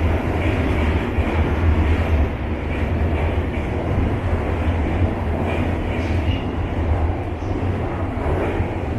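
Shanghai Metro Line 10 train running, heard from inside the carriage: a steady deep rumble with wheel-on-rail noise.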